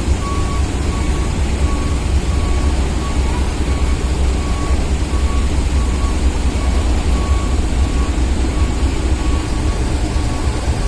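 Deep, steady heavy-engine rumble with a vehicle's reversing alarm beeping in a high single tone at an even pace, a little more than one beep a second.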